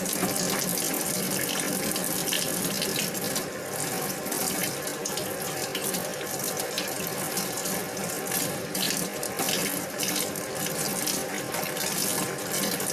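Tap water running steadily into a stainless steel sink as a bunch of green onions is rinsed under it by hand, with frequent short splashes as the stalks are moved through the stream.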